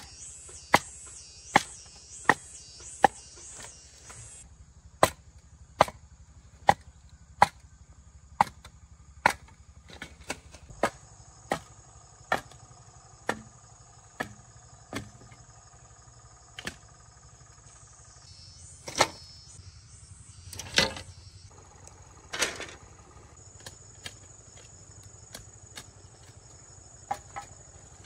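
A steady run of sharp blows from a hand tool striking wood, roughly one a second for the first fifteen seconds, then slower, with a few heavier knocks after that. Insects keep up a steady high-pitched buzz underneath.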